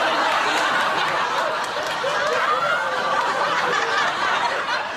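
Sitcom studio audience laughing steadily, dying down near the end.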